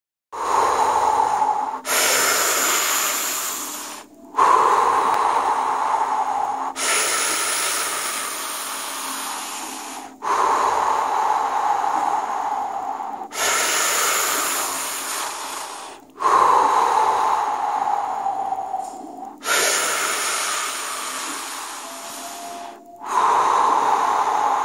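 Deep, forceful Wim Hof method breathing, loud and close: long in-breaths and out-breaths in a steady rhythm, each lasting about three seconds, starting strong and fading before the next begins.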